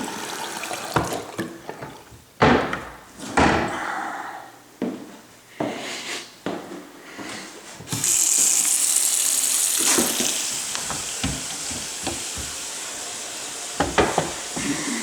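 Several knocks and bumps from cabinet doors and handling, then about halfway through a bathroom sink tap is turned on and water runs steadily into the basin, as a check for a leak under the sink.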